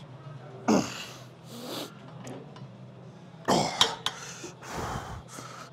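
A man's forceful breaths and grunts of effort, four short blasts, as he pushes through reps of an all-out weightlifting set. A steady low hum runs underneath.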